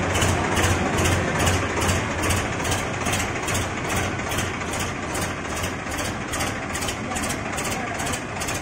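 Swaraj 963 FE tractor's three-cylinder diesel engine running steadily at low speed as the tractor creeps forward.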